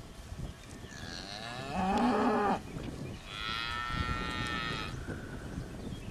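Cattle mooing twice: a loud, deep moo about two seconds in, then a longer, higher-pitched call that rises and falls.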